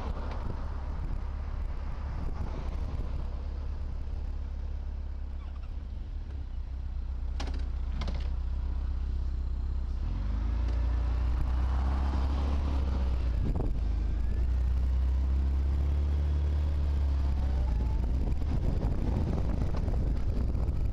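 Motorcycle riding on the road, recorded by a bike-mounted camera: a heavy low wind rumble on the microphone, with the engine note rising in pitch as it accelerates, more than once in the second half. Two sharp clicks about seven seconds in.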